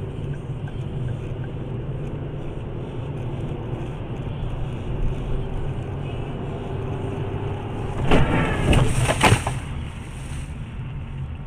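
Steady engine and road rumble of a car heard from a dash cam. About eight seconds in comes a burst of several loud bangs and rattles, followed by a brief hiss.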